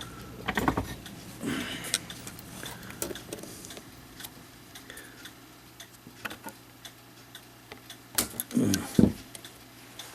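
Irregular metallic clicks and knocks of hand tools working on the brass parts of a mechanical clock movement, over a faint steady low hum.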